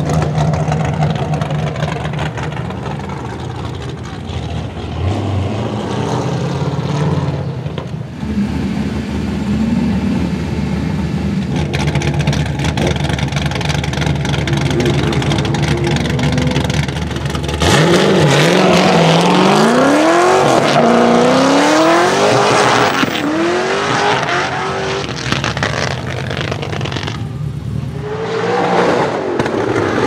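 Naturally aspirated Mast Motorsport LS7 V8 in a drift car. It runs steadily at low revs with small blips for the first half, then, from a little past halfway, revs hard and loud in repeated rising sweeps as the car is driven sideways.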